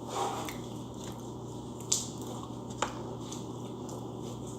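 Homemade slime being squeezed and handled: faint soft squishes with a few sharp clicks, the clearest about two and three seconds in.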